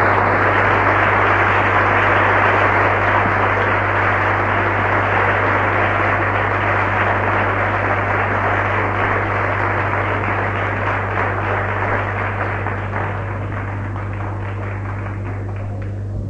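Studio audience applauding for a long stretch, the clapping slowly dying down over the last few seconds, with a steady low hum underneath.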